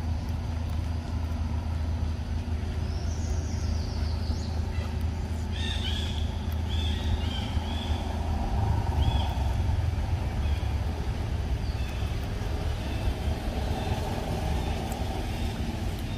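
Steady low background rumble, with a few short high chirps about five to seven seconds in.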